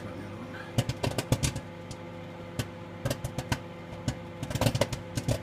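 Microwave popcorn popping in its bag inside a running 650–700 W microwave. There are irregular sharp pops, in clusters about a second in and near the end, over the oven's steady hum.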